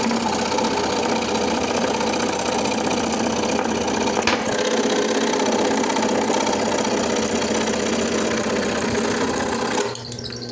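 Homemade scroll saw driven by a sewing machine's motor and mechanism, running steadily with its blade reciprocating, with one sharp click about four seconds in. It stops shortly before the end, leaving faint bird chirps.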